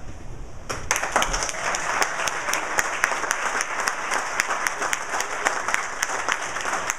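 Audience applauding: a roomful of people clapping, breaking out about a second in and going on steadily.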